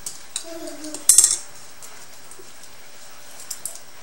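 A plastic spoon clatters briefly against a small ceramic bowl about a second in, followed by a couple of faint clicks.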